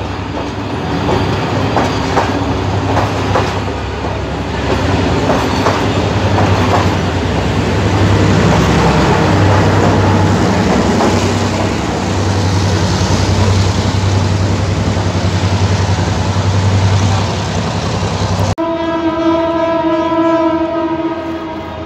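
A diesel-hauled passenger train passing close by, its wheels clattering over the rail joints beneath a steady engine rumble. About eighteen seconds in, the sound changes abruptly to a train horn sounding one steady, multi-toned blast to the end.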